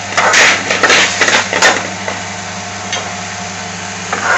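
A cooking utensil scraping and knocking against a frying pan as chicken tikka is stirred in balti sauce, with food sizzling in the pan. The scraping and clatter fall in the first second and a half; after that mostly the sizzle, with one small knock, over a steady low hum.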